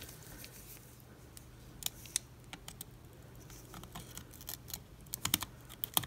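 Small, scattered clicks and ticks from hand-desoldering a surface-mount chip with a soldering iron and steel tweezers. The clicks grow denser about five seconds in, as the tweezers work the chip.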